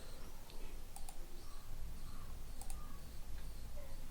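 A few faint, scattered clicks over a low steady background hum.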